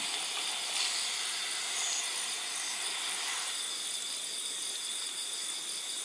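A steady hiss, stronger for the first few seconds and then easing, over a constant high drone of insects.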